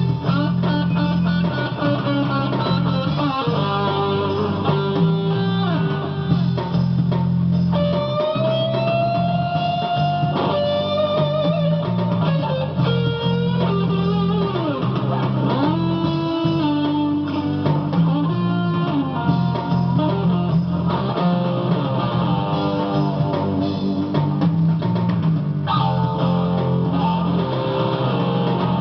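Stratocaster-style electric guitar playing a lead line with bent, sustained notes and sliding pitches, over a backing of bass and drums.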